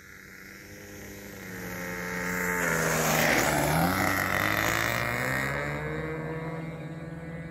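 OS .55 two-stroke glow engine of a low-wing RC trainer plane coming in to land, growing louder as the plane nears and rolls past on the runway. Its pitch drops as it passes, about three seconds in, and it fades as the plane moves away.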